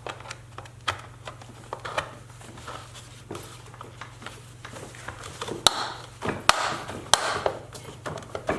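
Plastic hubcap being pressed onto a ride-on toy truck's wheel: scattered clicks and knocks as it is handled, with a few sharper snaps in the second half as its clips engage.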